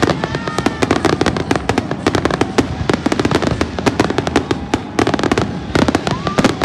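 A dense fireworks barrage: many rapid, overlapping bangs and crackles of shells bursting, with no let-up.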